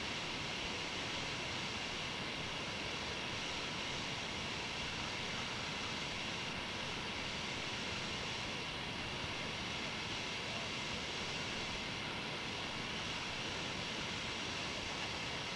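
Steady hiss with a faint, unchanging high tone: the recording device's own noise in an otherwise quiet room, with no distinct sound events.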